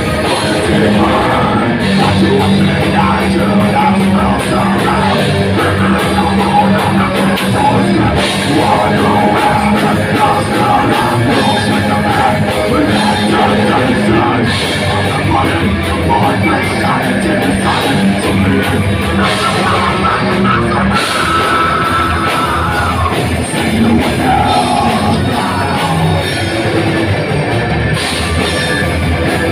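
Heavy metal band playing live: electric guitars, bass, drum kit and keyboard, with vocals sung into microphones.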